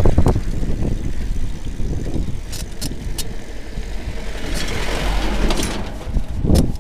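Mountain bike rolling fast down a dirt track, with a steady low rumble of wind on the camera and several sharp clicks. A white Mahindra Bolero SUV's engine passes close by about two-thirds of the way in.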